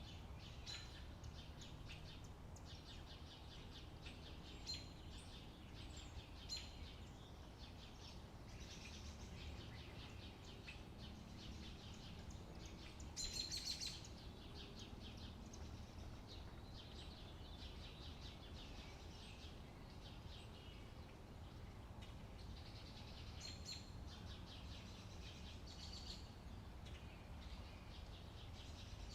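Birds chirping and trilling over a faint, steady low rumble, with a louder burst of rapid chirps about halfway through.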